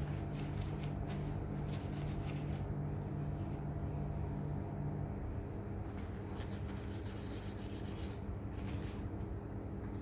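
Rubbing and scraping on a part by hand, in short irregular strokes, over a steady low hum whose strongest tone stops about halfway through.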